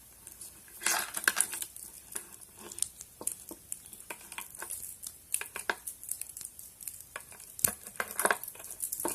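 A metal pick tool scraping and clicking inside a vintage Yale padlock's keyway, in quick irregular ticks and rattles as it probes for the mechanism.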